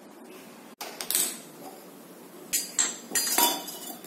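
Metal cookware and utensils knocking and clinking on a gas stove: one noisy clatter about a second in, then several sharp clinks in the second half.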